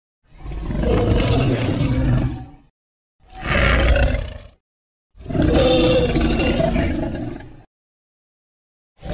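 Anguirus kaiju roar sound effects, as edited from the 2021 anime: three separate roars, the middle one shorter, with short silences between them, and a fourth beginning at the very end.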